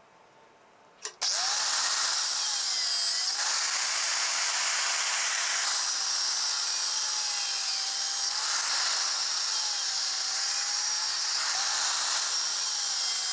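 Angle grinder with an abrasive cut-off disc cutting through a hardened steel screwdriver bit held in a vise. It starts about a second in, then runs steadily, its motor whine dipping and rising as the disc is loaded.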